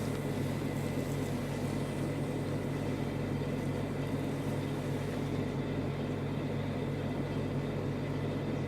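Steady low hum with a faint hiss, even in level throughout; it cuts off abruptly with a click near the end.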